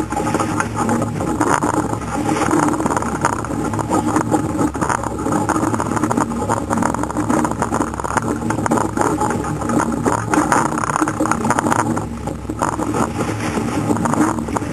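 Wind buffeting the microphone and water rushing past the hull of a surf boat being rowed through chop, with scattered knocks.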